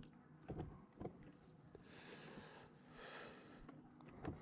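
Near silence: a few faint clicks, then a soft hiss about two seconds in and again briefly about a second later.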